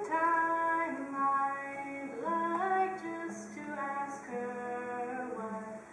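A girl singing a slow song with held notes, accompanying herself on a strummed acoustic guitar.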